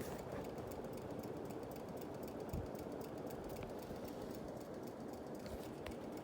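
Lasko American Classic ceiling fan running steadily, its blades pushing air with a low rushing hum, while its pull chain ticks lightly and rapidly against the fan.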